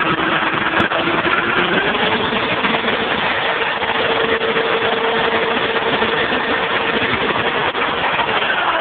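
Electric drill running steadily, spinning a fan made from a plastic soda bottle, with a rushing hiss of moving air. The motor's whine rises in pitch about two seconds in as it speeds up, then holds steady.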